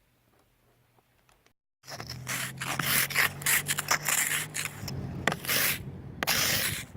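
Near silence, then after about two seconds a quick, irregular run of scraping, crunching noises in snow, over a steady low hum.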